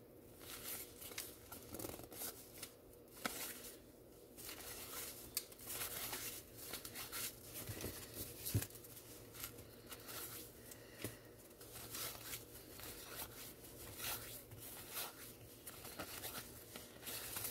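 Faint rustling and soft irregular clicks of cardboard baseball cards being handled, flipped through and laid down.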